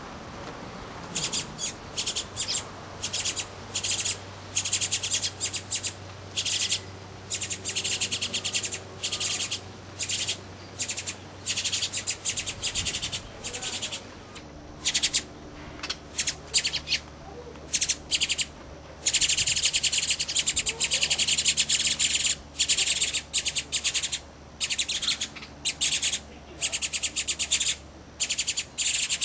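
Goldfinch nestlings begging in the nest: bout after bout of rapid, high, buzzy chirping with short gaps between, and a longer unbroken stretch a little past the middle.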